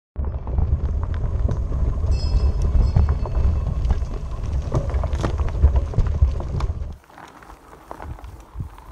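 Bicycle rolling fast over a rough stony dirt track, heard on a bike-mounted camera: heavy wind rumble on the microphone with the crunch and rattle of gravel under the tyres, and a brief high ringing tone about two seconds in. About seven seconds in it cuts to a much quieter light breeze.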